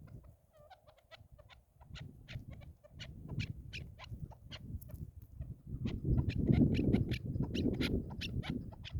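Chukar partridge calling in a rapid series of short clucking notes, getting busier in the second half, over a low rumble of wind or handling noise.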